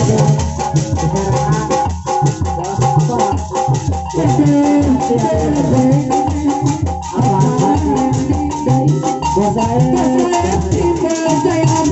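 Live Sundanese jaipong music, loud: kendang drum strokes in a quick, steady rhythm with clicking small percussion, under a sliding, wavering melody line.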